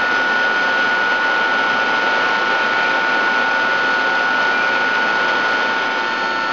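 Steady mechanical drone of running shop machinery, a constant noise with two steady whining tones.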